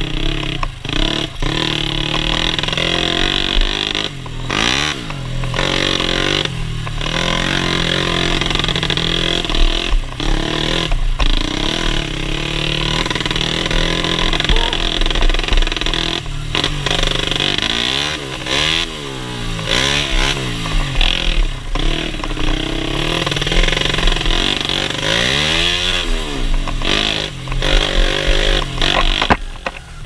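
Dirt bike with a Yamaha Jupiter four-stroke single-cylinder engine in a YZ frame, ridden off-road: the engine revs up and down over and over, with several brief drops as the throttle is rolled off.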